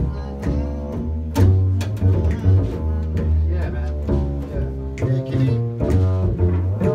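Live jazz-blues band playing an instrumental intro, led by a plucked upright double bass with drums and cymbal hits over it.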